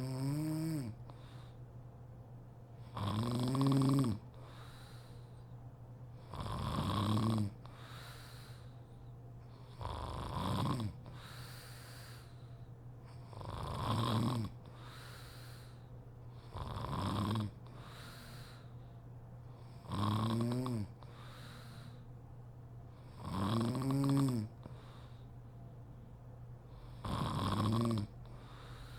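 A sleeping woman snoring, one snore about every three and a half seconds, each about a second long with a pitched drone that rises then falls. A steady low hum runs underneath.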